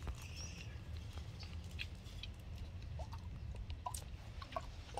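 Baby monkey giving several short high squeaks and whimpers, some sliding up in pitch, over a low steady rumble.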